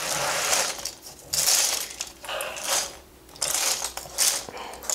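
Loose plastic keycaps from a mechanical keyboard clattering against each other and the tabletop as a hand sweeps the pile aside, in several spells of rattling.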